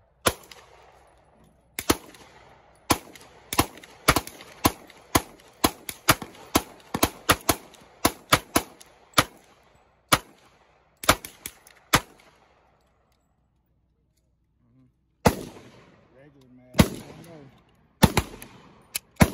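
Pistol gunfire: a long string of shots at an uneven pace, some in quick pairs, each with a short echo. After a pause of about three seconds, several more shots follow near the end.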